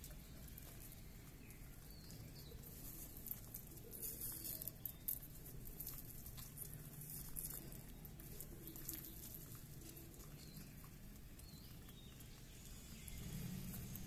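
Pigeons pecking at feed on a concrete floor: faint, scattered taps and clicks over a low background hum, with a cluster of sharper taps about four to five seconds in.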